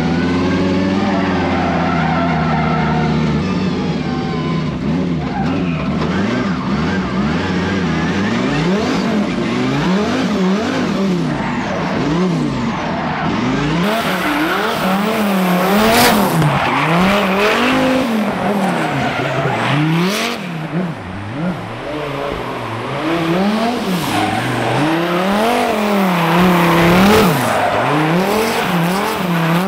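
Twin-turbo V10 engine of a Dodge Viper drift car revving up and down about once a second while the car drifts, with tyres skidding and squealing in the second half. The engine note is steady for the first few seconds before the repeated revs begin.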